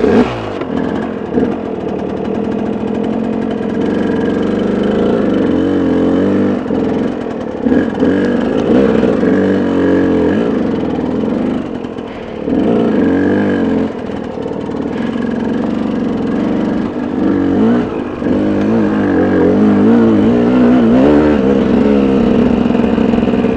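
KTM dirt bike engine running under way, its revs rising and falling as it is ridden over rough dirt trail. The engine dips briefly twice, a little before the middle.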